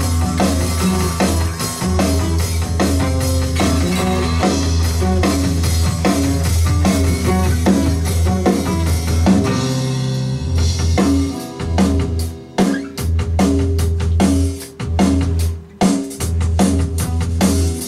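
Band music driven by a drum kit, with a strong low note holding underneath. About halfway through it breaks, then goes on in stop-start hits with short gaps between them.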